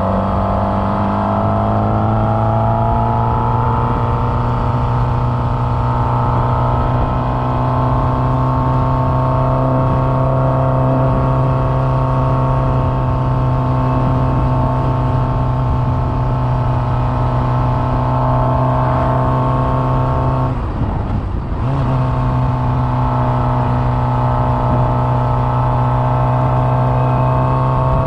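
Sport motorcycle engine running under way, its note rising slowly and steadily. About twenty seconds in the note dips and breaks for a gear change, then picks up lower and climbs again.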